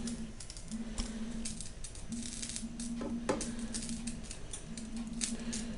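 Omelette cooking in a frying pan: butter and egg crackling with irregular small pops and ticks, over a low hum that cuts in and out several times.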